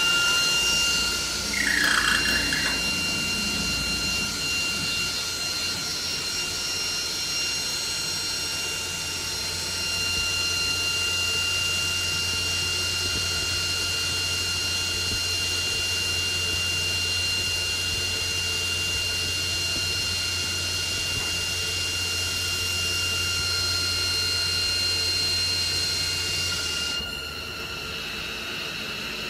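Rotary friction welding machine welding a T-head onto a rebar: the spindle runs with a steady high whine and low hum, with a brief falling squeal about two seconds in. The running gets louder about ten seconds in. Both the whine and the hum cut off abruptly about 27 seconds in as the spindle stops, which ends the friction stage before the forge stage, leaving a quieter machine hum.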